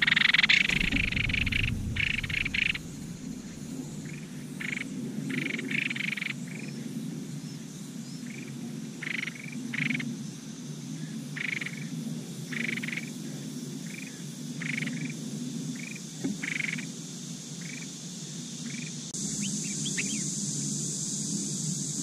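Collared finchbill nestling begging: a loud burst of high calls as it is fed, then short high calls repeated about once a second. A steady low hum runs underneath, and a steady high hiss comes in near the end.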